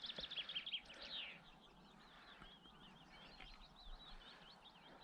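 Faint birdsong: a small songbird twittering in a quick, continuous run of short high chirps over a light outdoor hiss.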